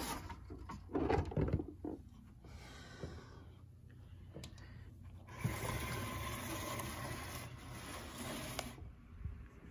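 Handling sounds from a cordless faux wood mini blind being fastened down on a patio door: a few knocks about a second in, a single click about halfway, then a steady rustling hiss for about three seconds.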